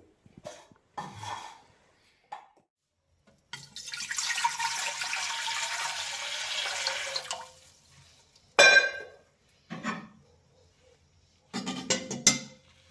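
A steady stream of liquid running for about four seconds, then sharp clinks of utensils or dishes, the loudest a little after the liquid stops and a quick cluster near the end.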